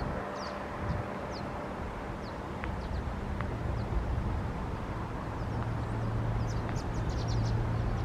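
Small birds chirping in short, quick notes, more often in the second half, over a steady outdoor rush. A low steady hum swells from about halfway through.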